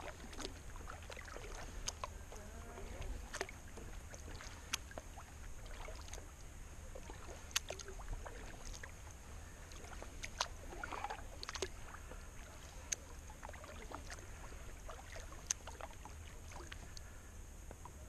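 Kayak paddle strokes on calm water: irregular drips and small splashes as the blades dip and lift, with a few light ticks and knocks.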